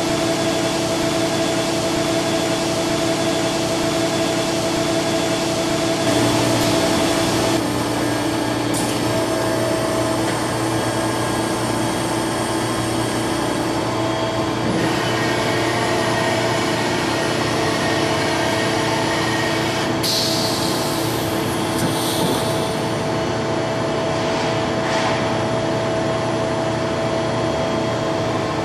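Okuma MCR-B II double-column machining center running through an automatic attachment change: axis slides traversing and the head changer working, a steady machine hum with held tones that shifts several times, and a short hissing burst about two-thirds of the way through.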